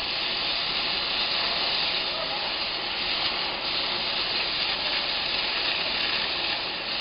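Steady hiss of the oxy-acetylene flame from a rebar gas pressure welding machine's burner.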